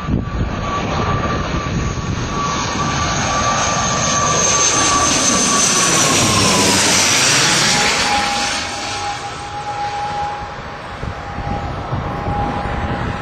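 ATR-72 twin-turboprop airliner on low final approach passing directly overhead: a steady engine and propeller whine that grows louder, peaks about six seconds in, then drops in pitch and fades as the aircraft moves away toward the runway.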